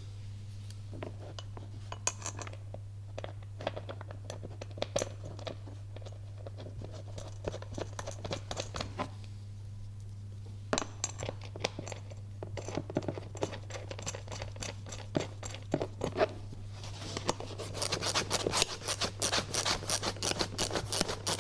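10mm bolts, nuts and metal brackets being handled and fitted with hand tools: scattered clicks and taps, then a dense run of quick, even ratchet clicking for the last four seconds or so. A steady low hum runs underneath.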